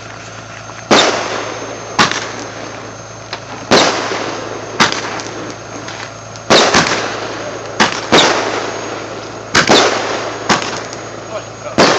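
Consumer aerial fireworks going off in a rapid series: about a dozen sharp bangs, some in quick pairs, each trailing off over a second or so.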